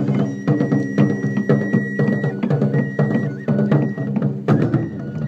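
Music with rapid, dense drumming over a steady low accompaniment, and a high melody line that holds long notes and steps down in pitch.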